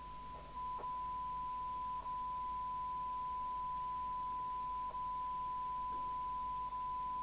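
Steady single test tone at about 1 kHz from a Sapphire X4000 CB radio's speaker, which is receiving a tone-modulated signal from a signal generator for a receive sensitivity (SINAD) check. The tone grows louder about half a second in and has a few brief dropouts.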